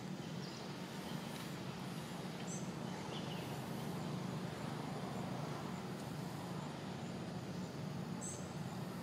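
Steady outdoor background noise with a low hum, and a few short, high bird chirps: one about two and a half seconds in, another a moment later, and one near the end.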